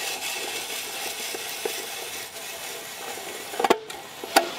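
Hand-cranked spiral potato cutter turning a skewered raw potato through its blade, a steady crisp scraping as the potato is cut into a spiral. Two sharp knocks come near the end.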